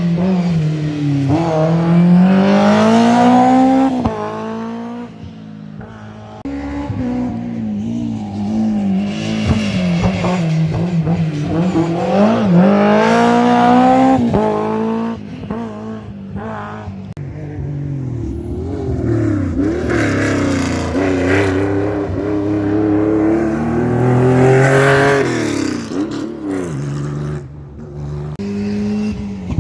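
Rally cars at speed on a special stage, engines revving hard with pitch climbing through each gear and dropping sharply on the lift and downshift into corners. The sound changes abruptly several times as one car's run gives way to the next.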